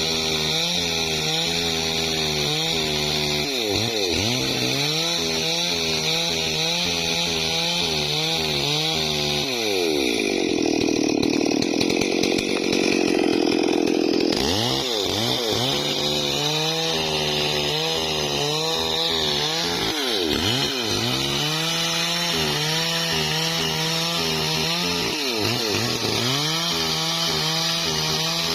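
Stihl MS440 two-stroke chainsaw cutting into a tree trunk at high revs, its engine pitch dipping as the chain bites and climbing back again every few seconds. For about five seconds near the middle the pitch blurs into a rough, noisier sound.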